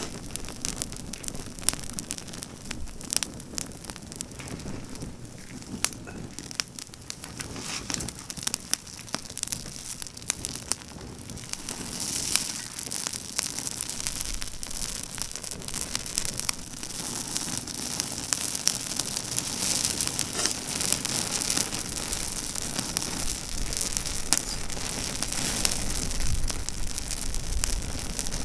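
Campfire of pruned pine branches burning, with dense crackling and snapping throughout. The fire grows louder from about halfway, and a low rumble joins near the end.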